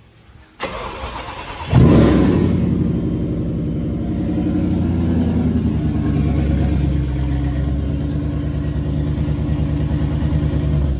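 Whipple-supercharged Ford Coyote V8 in an F-150 cranking on the starter for about a second, then catching with a loud rev flare and settling into a steady idle.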